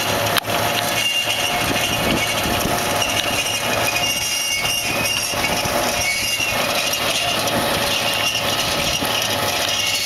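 Univerco carrot harvester running: a steady machinery din with the knocking clatter of carrots tumbling off the elevator onto the load. A high thin whine comes and goes over it.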